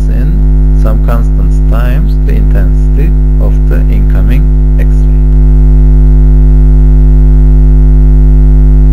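Loud, steady electrical mains hum on the recording: a low drone with a ladder of higher overtones. A faint voice is heard over it in the first half.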